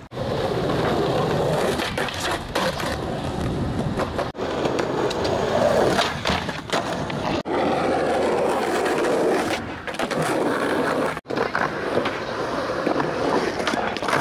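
Skateboard wheels rolling on concrete, with sharp clacks of the board, in several short clips. The sound breaks off abruptly three times between clips.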